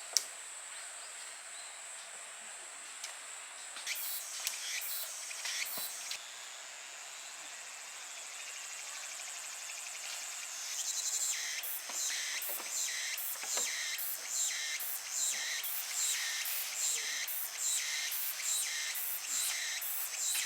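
Insects calling: a steady high buzz, then from about halfway a rhythmic run of short high chirps, roughly one and a half a second. A single sharp click comes right at the start.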